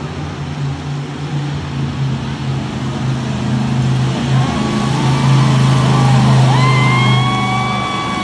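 Monster truck engine running loud, growing louder to a peak about six seconds in as the truck comes close. From about four seconds in, several steady high whistling tones sound over it.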